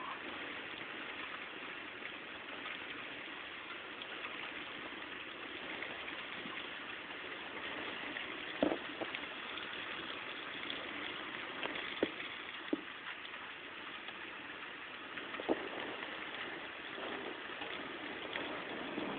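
Steady rain falling, heard from behind window glass, with a few sharp taps in the middle stretch.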